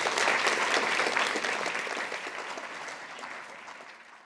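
Audience applauding, many hands clapping at once; the applause fades steadily and is cut off near the end.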